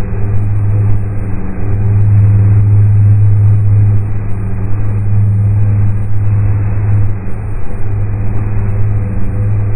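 Synthesized space-ambience drone: a steady low hum with overtones over a rushing hiss, slowly swelling and dipping in strength.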